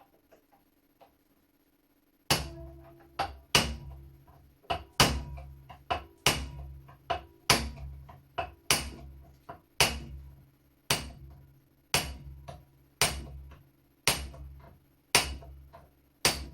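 Hammer blows on a punch set against a rusted-in screw of an old flintlock shotgun, driving it to break the screw loose. The strikes begin about two seconds in, come roughly once a second with a few lighter taps between, and each rings briefly.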